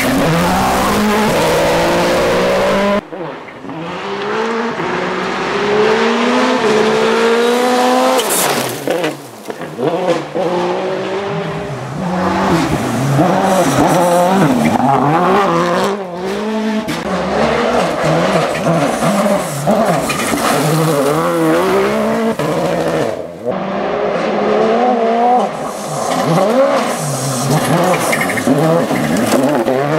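Toyota Yaris WRC rally car's turbocharged 1.6-litre four-cylinder engine at full throttle on gravel, its pitch climbing through each gear and dropping at the shifts, with gravel noise from the tyres. Several passes are cut together, with abrupt breaks about three seconds in and again near the end.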